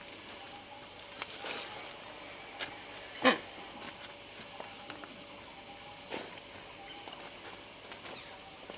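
Steady high-pitched insect chorus, with a few faint ticks and one short, louder sharp sound a little over three seconds in.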